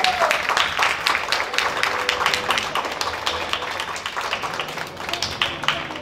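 Audience applauding, many hands clapping in a dense, continuous patter that eases off slightly near the end.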